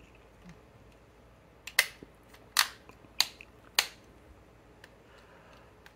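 Plastic joints and parts of a Tobot AirHyde transforming toy clicking as they are turned and snapped into place: four sharp clicks about half a second apart, with a few fainter ticks.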